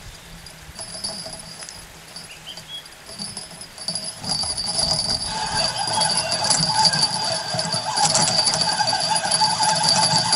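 Spinning reel being cranked to bring in a small fish on a bottom rod, its gears whirring steadily with fine rapid ticking, louder from about four seconds in, with the bite bell on the rod tip jingling.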